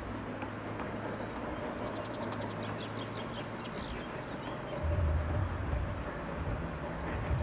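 Narrow-gauge steam train running along the valley at a distance, a steady low rumble that grows louder about five seconds in. A bird trills briefly in the middle, a quick run of high notes.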